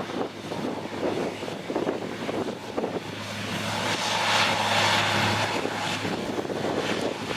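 A steady engine drone that swells over the first few seconds, peaks about two-thirds of the way in, then eases off.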